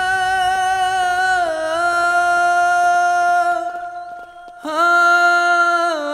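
Background film score: a single singing voice holding long, drawn-out notes, stepping down slightly about a second and a half in, breaking off for about a second, then holding again before sliding down at the end.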